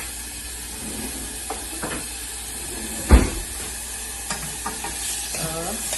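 Chopped onion sizzling in hot oil in a frying pan, with one sharp knock about three seconds in and a few lighter clicks.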